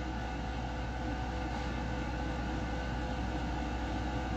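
Steady room tone: an even hiss with a low, constant hum, with no other sound rising out of it.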